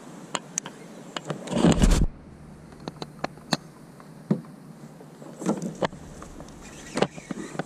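Irregular clicks and knocks from gear and water slapping against a fishing kayak's hull, with a loud rumbling buffet about a second and a half in, like wind or a bump hitting the kayak-mounted camera.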